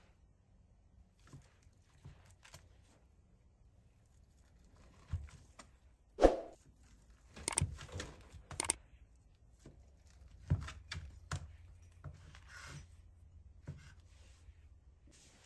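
Knife cutting cooked ham on a wooden cutting board, with scattered knocks and scrapes. The loudest knock is about six seconds in, and a cluster of them follows a couple of seconds later.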